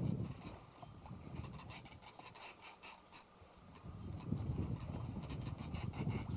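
Wind rumbling on the microphone, dropping away about half a second in and building back near the end. In the lull a booby perched in the rigging gives two runs of short, rapid calls, about four a second.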